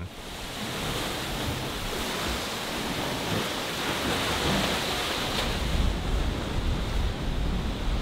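Ocean surf crashing and washing against a rocky shore, with wind on the microphone. A steady rushing wash throughout, with a deeper rumble joining about halfway through.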